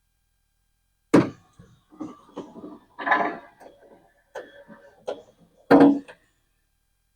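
A newly fitted 1969 Chevelle door latch and outer handle being worked by hand: a sharp click about a second in, a run of smaller clicks and rattles, and a loud clunk near the end.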